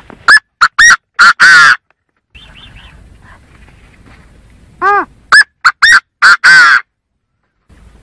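Chinese francolin (gà gô) calling: a loud phrase of about six sharp notes ending in a longer one, given twice about five seconds apart.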